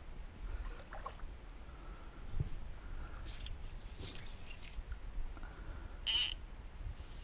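Creek ambience from a kayak: a dull knock about two and a half seconds in, a few faint short calls from small animals, and one brief, louder call about six seconds in.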